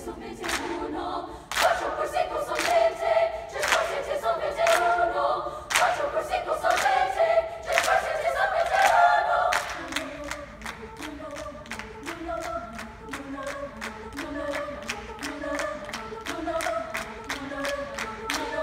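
Treble choir of young women singing a cappella while clapping their hands as body percussion. The singing is loud for the first half, then drops softer about halfway through while the claps go on in a quick, steady pattern.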